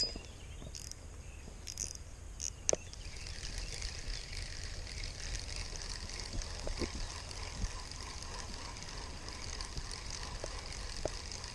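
A fishing reel being cranked steadily to bring in a hooked fish, a fine high whirring that starts about three seconds in and keeps going. A few sharp clicks come before it.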